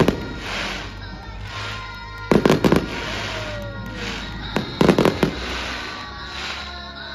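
Aerial fireworks bursting in volleys of rapid sharp bangs, three volleys about two and a half seconds apart, over steady background music.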